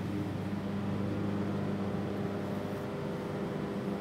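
Steady low hum and rumble inside a moving train carriage, with a drone held at a few low pitches.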